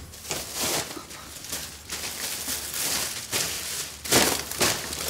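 Plastic shopping bags full of groceries rustling and crinkling as they are handled, in several bursts, the loudest about four seconds in.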